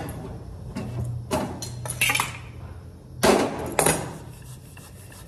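Household objects being handled on a shelf: a series of sharp knocks, clinks and rattles, loudest about two seconds and three seconds in.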